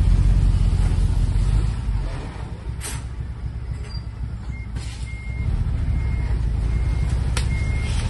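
Dump truck's diesel engine running as it reverses. The engine eases off for a few seconds, then picks up again. Its reversing alarm starts beeping about halfway in, roughly every 0.7 seconds, and three sharp snaps come as the truck's body pushes in under mango branches.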